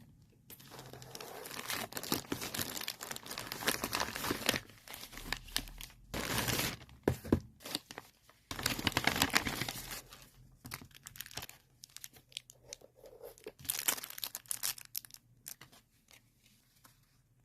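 Plastic packaging crinkling and tearing as a package is unwrapped by hand, in irregular bursts with short pauses, dying away near the end.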